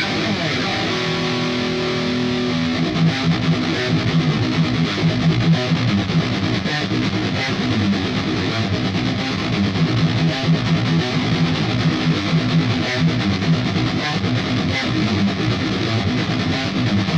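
Sterling JP70D electric guitar played with distortion through a Line 6 POD HD500 effects unit: a held chord for the first couple of seconds, then a fast, rhythmic riff in the low register.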